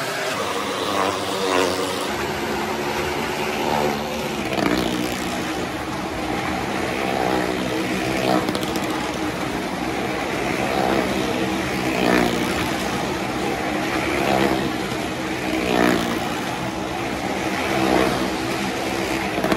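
Motorcycle engines revving as riders circle the wall of a wooden well-of-death drum. The engine note swells about every two seconds as a rider sweeps past.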